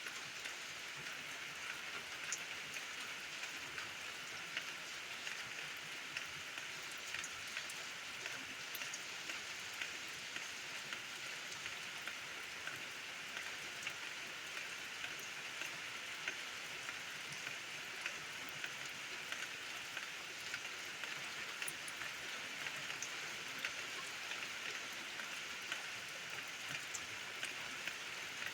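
Steady rain falling, an even hiss with many separate drops ticking on surfaces.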